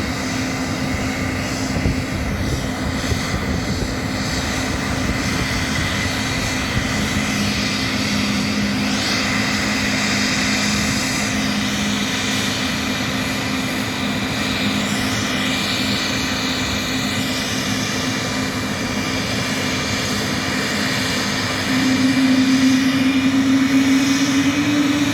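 Airliner jet engines running with a steady hum. About 22 seconds in, a louder low tone comes in and rises slightly as the engines pick up.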